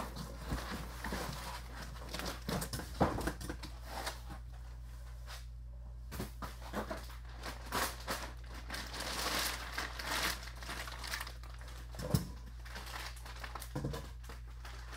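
Plastic bag crinkling and foam packing rustling and rubbing as a network switch is pulled out of its cardboard box and unwrapped, with a few sharp knocks, over a steady low hum.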